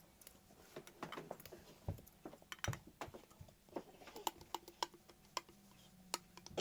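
Irregular light clicks, taps and rustles of a plastic scale model airliner and its packaging being handled during unboxing, a few clicks a second.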